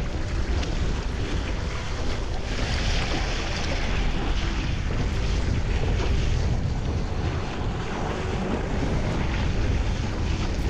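Gusty wind buffeting the microphone over the steady hiss and splash of water rushing past a Mistral One Design windsurf board sailing at speed. The spray hiss swells for a second or so about two and a half seconds in.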